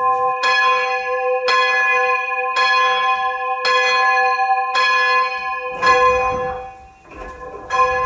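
A single church bell struck by its clapper about once a second, the same note each time, as it is rung up from the down position for full-circle ringing. The strokes weaken and thin out near the end.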